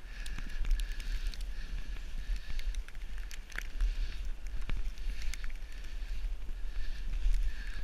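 Snowboard sliding and carving over snow, a hiss that swells and fades every second or two with each turn, over a steady wind rumble on the camera's microphone, with scattered sharp ticks.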